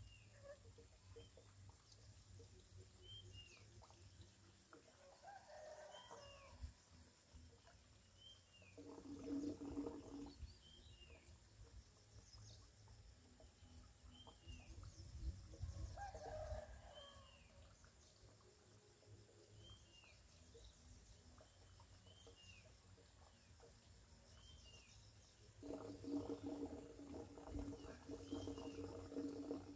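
Faint farmyard sounds: a rooster crowing several times, each call lasting a second or more, over a short falling chirp repeated about once a second and a high steady buzz that comes and goes.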